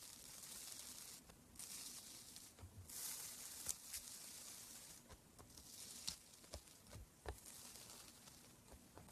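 Slime being squeezed and poked by hand, giving faint crackling, crinkling strokes about a second long, again and again, with scattered sharp little clicks and pops.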